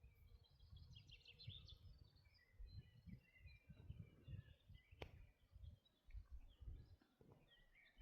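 Faint birdsong: scattered short chirps and warbles from small birds, over a low uneven rumble, with one sharp click about five seconds in.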